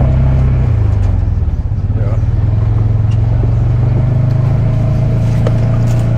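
Polaris RZR 570 side-by-side's single-cylinder engine running under way, its pitch easing down about a second in and then holding steady.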